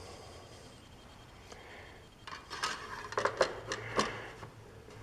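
The oil dipstick being pulled from and pushed back into the mower's fill tube: a quick run of light metallic clicks and rattles starting a little under halfway in.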